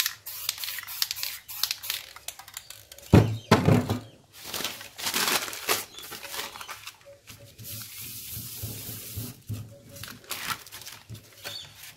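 Aerosol spray-paint cans hissing in several short bursts, with a loud knock about three seconds in. Near the end comes a rustle of paper as a catalogue sheet is pressed onto the wet paint.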